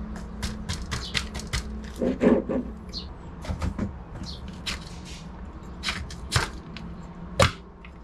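Drive-side Hollowtech crank and chainring being worked out of the bottom bracket by hand: a string of light metallic clicks and knocks, with two sharper knocks near the end.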